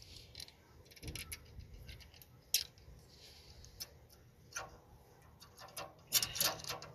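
A steel V-band clamp is handled and fitted around the turbine housing flange, giving scattered light metal clicks and clinks. A quick cluster of louder clinks comes near the end.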